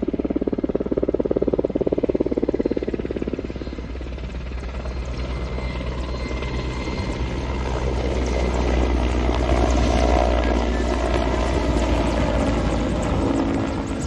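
Large firefighting helicopter flying overhead: a steady low drone with the fast, regular beat of its rotor blades. It grows louder towards the latter half.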